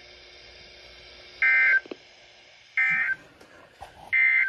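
NOAA Weather Radio EAS end-of-message code: three short, identical bursts of two-tone digital data, a little over a second apart, marking the end of the warning broadcast. Faint receiver hiss lies between the bursts.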